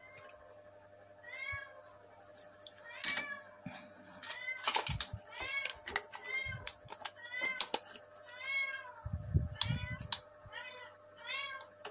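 A cat meowing over and over, short rising-and-falling calls about once a second, with sharp clicks and taps of tools and wire being handled and a few low knocks near the end.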